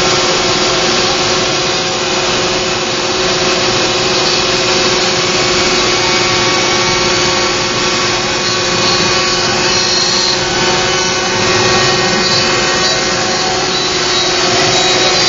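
Router spindle of a Joe's 4x4 Hybrid CNC machine running steadily at one constant pitch while its bit carves a wooden plaque, with the hiss of the cut mixed in.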